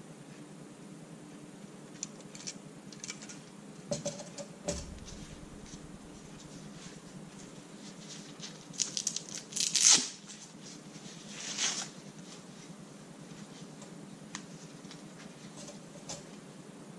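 Rolled webbing tow strap being handled and turned over in the hands: scattered rustles, scrapes and clicks, with a louder flurry of rubbing about nine to ten seconds in and another near twelve seconds.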